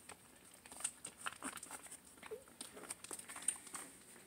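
Puppies suckling from their mother: faint, irregular wet slurping and clicking, with one short squeak a little past two seconds in.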